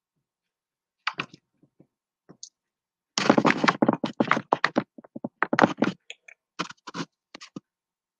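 A run of irregular clicks and knocks, sparse at first and densest from about three to five seconds in, then thinning out.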